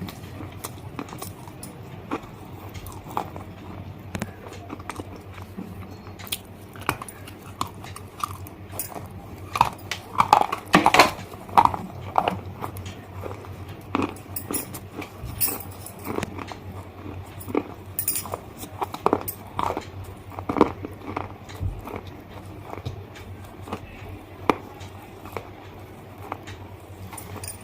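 A person taking bites of hard, brittle bars and chewing them close to the microphone: a run of sharp crunches and cracks, thickest about ten to twelve seconds in, with quieter chewing between.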